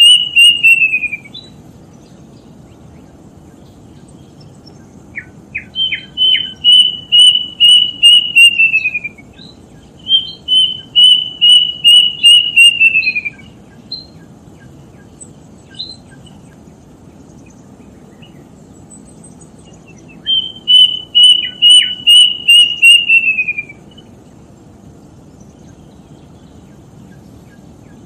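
A bird calling in phrases of about ten quick, evenly repeated whistled notes that hold their pitch and then slide down at the end. The call finishes just after the start, then comes three more times.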